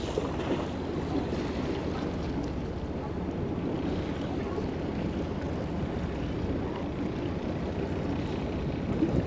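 Steady wind noise on the microphone over the wash of the sea around a boat at sea.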